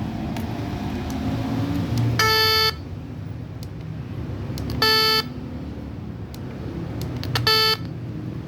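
Electronic horn module for an RC model (horn sound type 5) sounding three short toots a couple of seconds apart, each under a second long.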